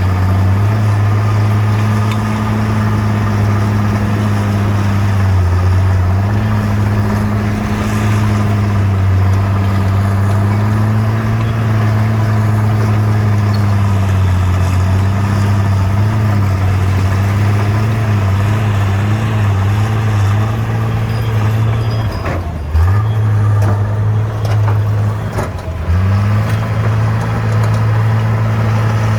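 Bulldozer's diesel engine running steadily under load, with its pitch wavering slightly. The engine note sags twice briefly about three-quarters of the way through, then comes back up.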